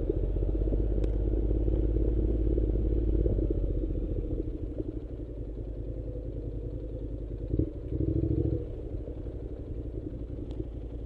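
An engine running steadily, louder for the first few seconds and then settling lower, with a short louder surge about eight seconds in.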